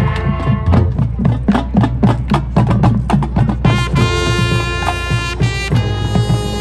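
High school marching band playing. A drumline drives a fast percussion passage, then about four seconds in the brass come in with held chords.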